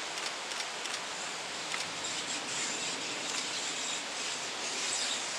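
Steady outdoor hiss of wind through the trees, with faint high chirps and ticks scattered through it.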